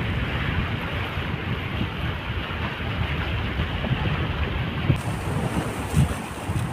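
Small sea waves washing against the rocks of a stone breakwater, with wind buffeting the microphone.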